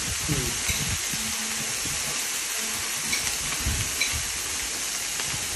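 Beef steak sizzling steadily in a frying pan over a portable butane gas stove, with a few light clicks.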